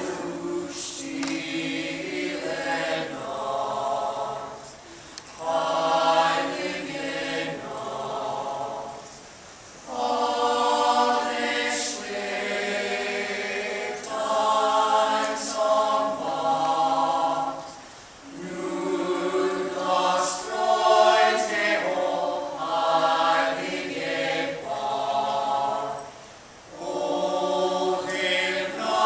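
A choir singing in long held phrases, with short breaks between them.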